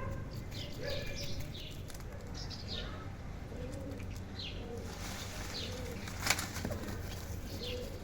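Birds calling: short, high chirps that slur downward, repeated every second or so, over lower cooing notes. A single sharp click sounds about six seconds in.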